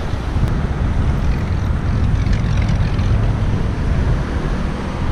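Steady wind rumble on an action camera's microphone while riding a bicycle, strongest in the low range.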